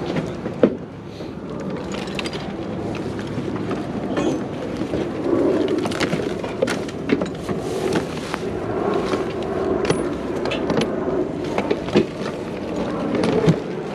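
Background bustle of a crowded outdoor market: a steady murmur with scattered sharp clicks and knocks.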